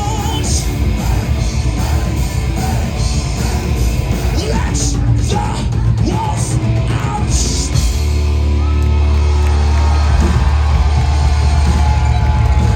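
Live heavy metal band playing loud, with yelled vocals over the band. About eight seconds in, a steady low note sets in under the music.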